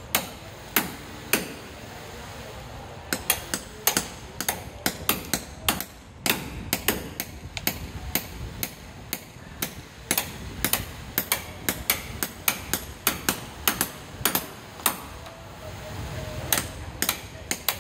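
Hammer blows on a construction site: a few single strikes at first, then a long irregular run of sharp, ringing strikes, about two or three a second, from about three seconds in.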